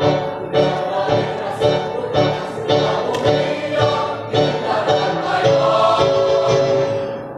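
Mixed choir of women and men singing a march together in several voices.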